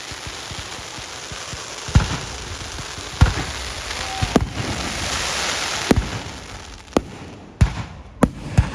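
Fireworks going off: a series of sharp bangs over a steady crackling hiss. The bangs come about a second apart, closer together near the end, and the hiss swells in the middle.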